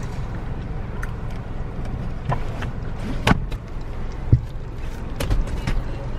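A car's low steady rumble with a series of short knocks and thumps scattered through it, the kind made by handling things in and around a car.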